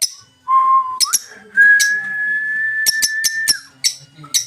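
A steady whistled note, short and lower at first, then stepping up to a higher pitch held for about two seconds before dropping off. Short sharp chirps of lovebirds sound throughout.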